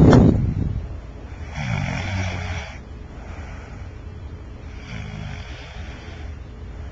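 A person snoring: a loud snore right at the start, then two more snores about three seconds apart, each fainter than the last.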